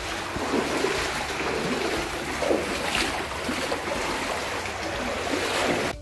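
Stream water rushing over rocks through a narrow cave gorge: a steady hiss of flowing water.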